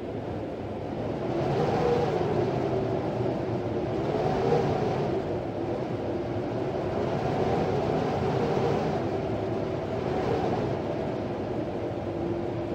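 Hurricane wind howling in gusts: a wavering whistle that slowly rises and falls over a rushing noise that swells every few seconds.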